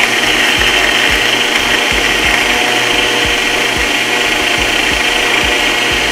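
Bullet-style personal blender motor running steadily at full speed, blending a protein shake with ice, with irregular low knocks throughout.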